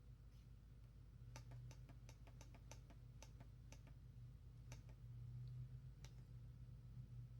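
Faint small clicks: a quick run of about a dozen starting about a second in, then a few more spaced out, over a low steady hum.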